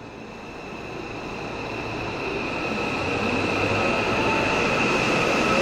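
JR West 207 series electric multiple unit pulling out of the platform and growing steadily louder as it passes. It carries a steady high whine, and lower tones rise as it picks up speed.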